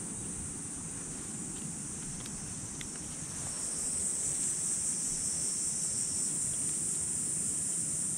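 Steady high-pitched insect chorus, with a low rumble of wind on the microphone under it; the chorus grows louder about four seconds in.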